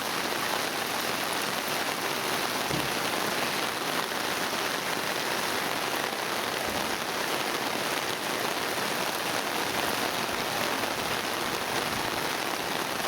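Heavy monsoon rain falling steadily, pattering on an umbrella held overhead.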